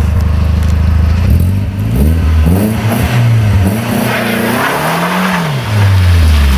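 Car engine running and revving, its pitch rising and falling several times between steadier stretches of drone.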